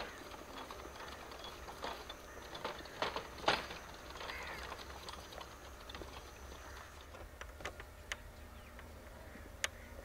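Donkey cart moving off along a dirt track: irregular knocks and clatters of the wooden cart and the donkey's hooves, the loudest about three and a half seconds in.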